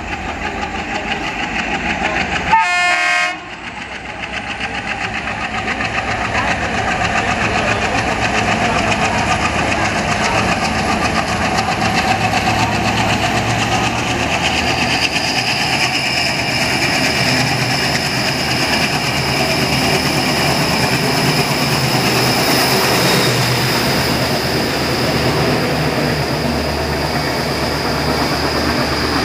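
WDG-3A diesel locomotive's ALCo 16-cylinder engine chugging under load as it accelerates toward and past the platform, growing louder over the first few seconds, with a short horn blast about three seconds in. Later the passing coaches add wheel clatter on the rails, and a steady high whine sits over the engine sound.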